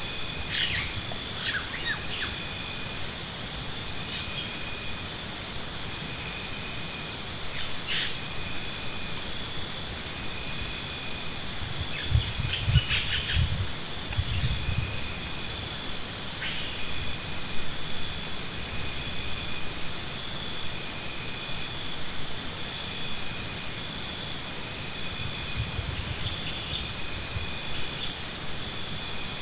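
Insect trilling: fast, high pulsed phrases of three to four seconds, repeating about every seven seconds over a steady high drone. A few dull low thumps come about halfway through and again near the end.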